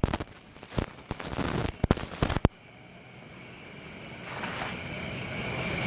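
Rough crackling and knocking on the camera microphone for about two and a half seconds, as from handling or rubbing. After that comes a steady high-pitched hum that slowly grows louder.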